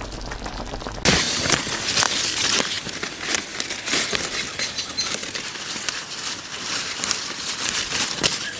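Dense crackling and rustling that starts suddenly about a second in: a steady hiss peppered with many irregular sharp clicks.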